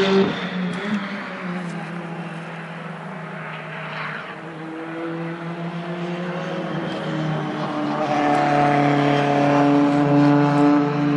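British Touring Car Championship race cars running on track. One car is loud at the very start and drops away within a moment. Another grows steadily louder to a peak about ten seconds in, then begins to fade.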